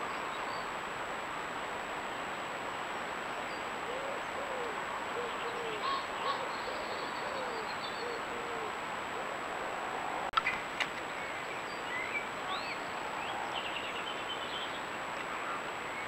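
A pigeon cooing, a run of short low notes from about four to nine seconds in, with faint songbird chirps around it. A sharp click comes about ten seconds in, over a steady high-pitched whine.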